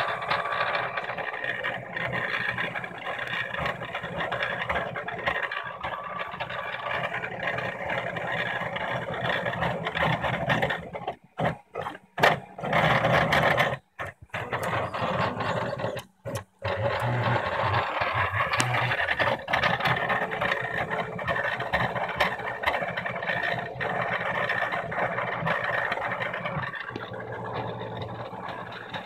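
Stepper motors of a home-built 3D printer driving the print head along its rods during a print: a continuous buzzing whir whose pitch keeps shifting as the moves change. It breaks off briefly a few times around the middle.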